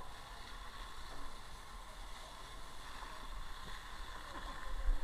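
Fire hose nozzle spraying a steady jet of water into burning machinery: a continuous rushing hiss over a low rumble.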